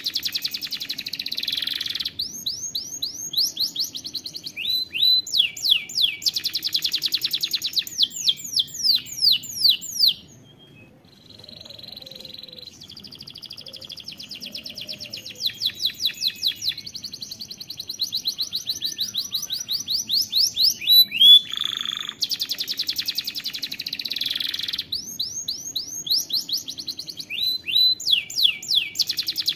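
Domestic canary singing a long song of rapid trills and fast-repeated sweeping notes, with a short lull about ten seconds in before the song resumes.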